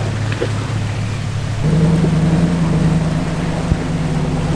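An off-road vehicle's engine running as it drives the trail, its note shifting up and getting louder about a second and a half in. A single sharp knock comes near the end.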